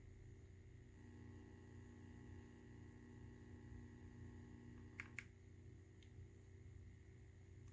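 Faint steady electrical hum from a running CRT television set, with a low buzzing tone that stops at two quick clicks about five seconds in.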